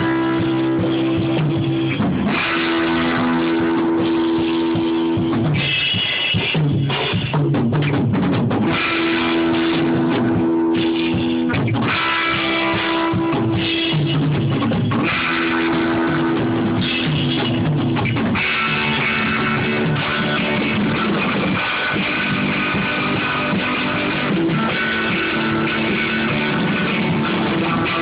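Rock band playing live: guitar chords over a drum kit, loud and steady, the chords changing every couple of seconds.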